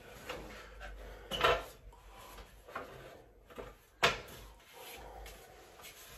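Knocks and clatter of a stepladder being climbed, with a few knocks about a second and a half in and a loud sharp click about four seconds in.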